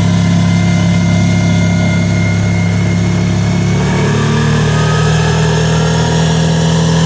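Kawasaki Teryx side-by-side engine running steadily, its note shifting to a different pitch about four seconds in.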